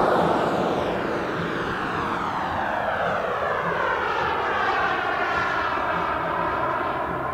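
The Behotec 190 Gold turbine of a 3 m model Aermacchi MB-339 jet passes close and climbs away. A loud rush at the start gives way to the turbine's whine falling steadily in pitch as the jet recedes.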